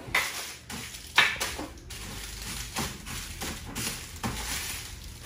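Plastic sheeting rustling and crinkling in irregular bursts as a styrofoam box is packed, with one sharp crackle about a second in.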